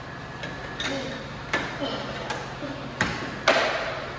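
Air hockey puck and mallets clacking: about six sharp, irregular knocks as the puck is struck and bounces off the table's rails, the loudest about three and a half seconds in. A steady low hum from the table's air blower runs underneath.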